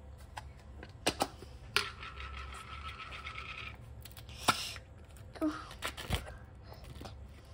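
A plastic yogurt cup being handled and its sealed foil lid peeled back: a scatter of sharp plastic clicks and crinkles, the loudest about halfway through.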